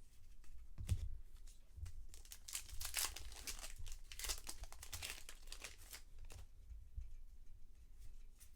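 A baseball card pack's wrapper being torn open and crinkled, a crackly rustle that is busiest in the middle and dies down near the end. A light knock comes about a second in.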